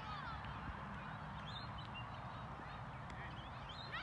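A cricket bat strikes a cricket ball once near the end. Underneath is a steady low rumble with scattered faint chirping calls.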